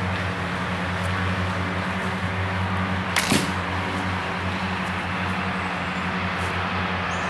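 A homemade PVC-pipe recurve bow shot once a little over three seconds in: a sharp double snap of the paracord string's release and the arrow's flight, over a steady low hum.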